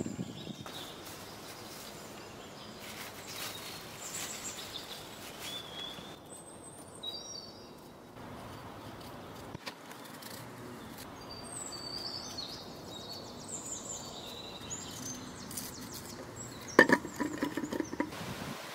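Small birds chirping in short high calls and twitters over a steady outdoor hiss. Near the end comes a brief cluster of sharp knocks and clicks, the loudest sound here.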